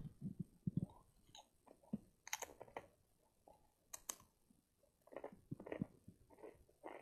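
A boy making mouth noises: short, irregular clicks and smacking sounds, with two sharper clicks about two and a half and four seconds in.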